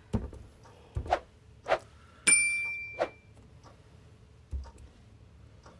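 A finger tapping and pressing the touchscreen of a wall-mounted Micro Air EasyTouch RV thermostat, with a few soft knocks. A little over two seconds in comes one bright ding that rings and fades.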